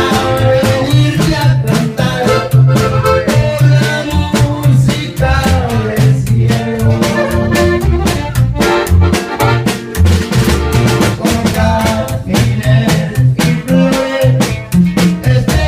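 Live norteño band playing: a button accordion carries the melody over a plucked upright bass and a drum kit keeping a steady beat.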